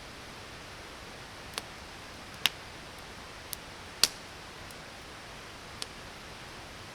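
Campfire wood crackling with five sharp pops, the loudest two about two and a half and four seconds in, over the steady rush of a creek.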